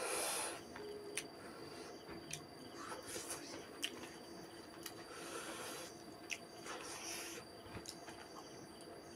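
A man eating rice and fish with his fingers: short wet clicks and smacks of chewing, and a few hissing breaths, the loudest at the very start, over a faint steady hum.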